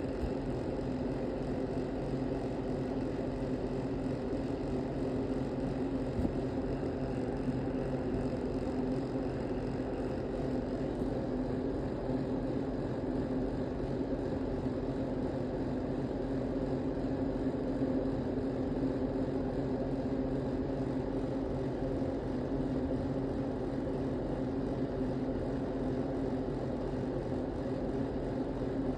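A steady, unbroken mechanical hum with a low, even pitch, holding constant throughout.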